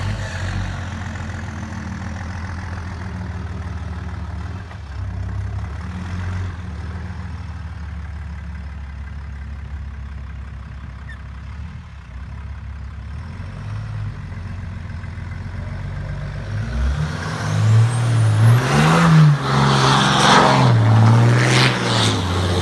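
A 6.7 L Cummins turbo-diesel in a 2017 Ram 2500, tuned and deleted with a 5-inch straight pipe, runs at a steady low rumble. In the last several seconds it revs hard, its pitch rising and falling, with a loud rushing noise over it.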